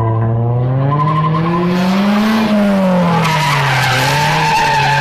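Toyota GT86's flat-four engine revving as the car is driven hard through a cone course, with tyres squealing. The engine pitch climbs for the first couple of seconds, drops about four seconds in, then starts rising again.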